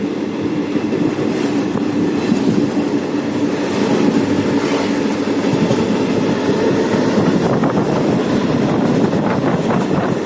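Rajgir Intercity passenger train running along the track: a steady, loud rumble with a constant hum. Wheels click over the rail joints in the second half.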